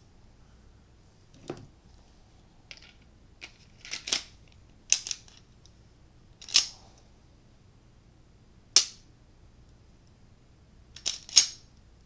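Glock 17 pistol being worked by hand: about a dozen sharp metallic clicks and snaps spaced irregularly, some in quick pairs, the loudest near the middle and just before the end, as its parts and the newly lightened trigger are tried out.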